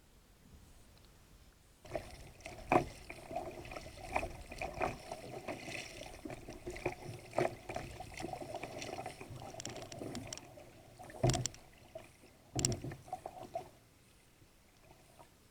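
Irregular knocks and clatter on a fishing kayak, starting about two seconds in and stopping near the end, with a few louder thumps among them.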